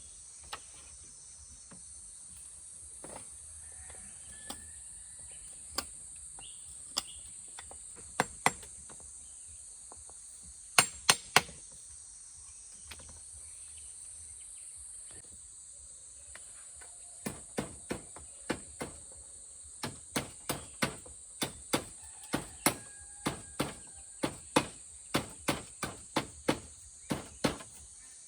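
Hammering: sharp blows, scattered and in twos and threes at first, then a steady run of about two strikes a second through the second half, over a steady high chorus of crickets.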